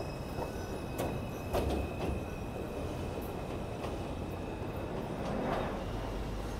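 R142 subway train pulling away from an elevated station, wheels clacking sharply over the track a few times with a steady high whine under the running rumble.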